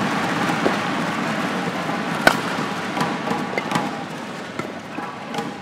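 Badminton rally: sharp racket strikes on the shuttlecock, a few of them spaced irregularly, the loudest about two seconds in, over a steady hum of the sports hall.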